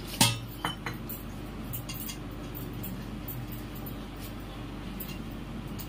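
A sharp clink of tableware a quarter second in, then a few lighter clicks and ticks, over a steady low hum.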